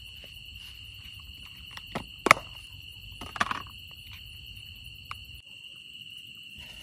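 Sharp clicks and knocks of a plastic spice box being picked up and opened, the loudest a little over two seconds in and a few more around three and a half seconds. Under them runs a steady high-pitched drone of night insects.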